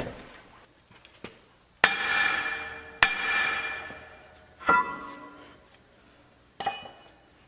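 Four hammer blows on the rear brake drum of a 1977 Mack R Model truck, each leaving a bell-like metallic ring that fades over about a second, as the drum is knocked loose for removal.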